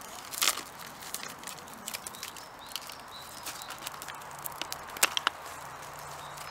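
Twig fire crackling in a small folding steel wood stove, with sharp snaps about half a second in and again around five seconds in, while dry bark is rustled and torn by hand. Faint bird chirps in the background.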